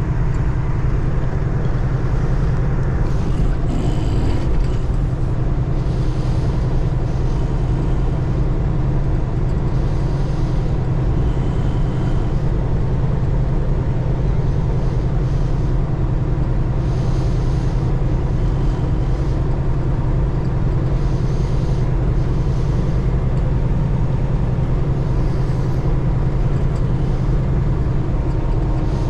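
Semi-truck driving at steady road speed: an even, unchanging low drone of engine and road noise.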